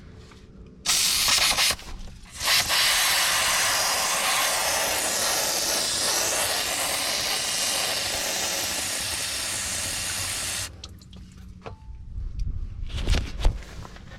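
Loud steady hiss of a pressurised spray. It starts about a second in, breaks off briefly, then runs for about eight seconds before cutting off sharply. A few low knocks follow near the end.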